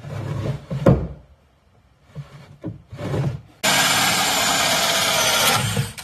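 A plywood drawer slides in and shuts with a thump about a second in. Past the middle, a cordless drill with a hole saw cuts steadily through a plywood drawer front for about two seconds, boring a finger-pull hole, and stops just before the end.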